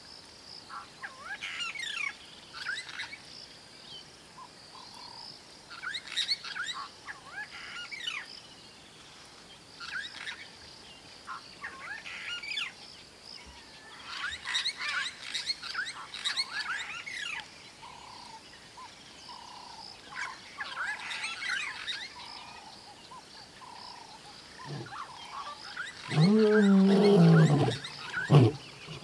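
Wild bird calls in short clusters every few seconds over a steady high drone of bush ambience. Near the end a male lion starts roaring, deep and much louder than the birds.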